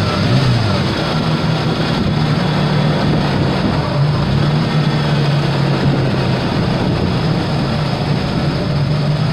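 1987 Ford Bronco II's 2.9-litre V6 running steadily while it warms up, burning off the raw gasoline that soaked its spark plugs while it had no spark.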